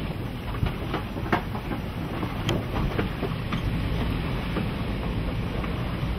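Lava entering the ocean: a steady rushing hiss with a low rumble, broken by scattered sharp cracks and pops.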